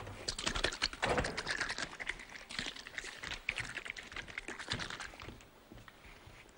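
Rapid, irregular clicking and rustling of items being handled in a kitchen, dying down after about five seconds.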